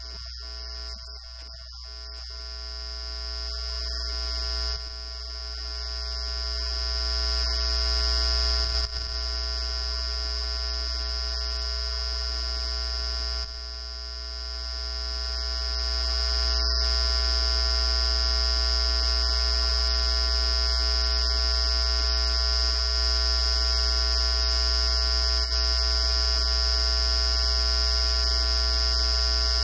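Steady electrical buzz with a deep hum under it and a high whine on top. It swells over the first several seconds, then holds level. It is a fault in the recording's audio that drowns out the meeting.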